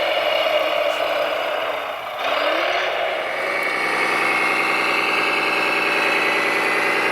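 Radio-controlled construction vehicle running. About three seconds in, a steady engine-like idle with an even hum takes over.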